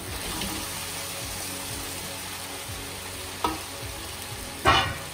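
Mixed vegetables sizzling steadily in a hot wok as cooked rice is tipped in. Two sharp metal clanks against the wok come near the end, the second louder and ringing.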